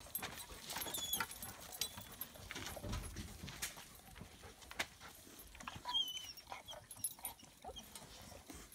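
Puppies gnawing and pawing at a hard plastic lid, with scattered clicks, scrapes and knocks. Two short high whimpers come about a second in and about six seconds in.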